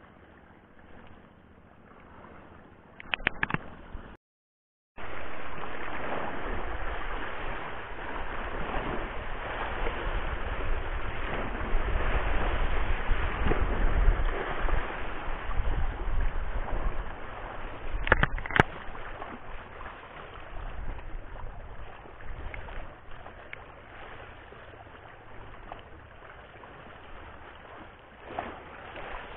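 Sea water washing over shoreline rocks: a rushing noise that sets in suddenly about five seconds in, swells for several seconds and then slowly eases off. A single sharp click comes about two-thirds of the way through.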